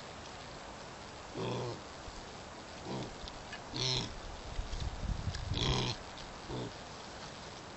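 Pigs grunting: five short grunts about a second apart, the loudest near the end.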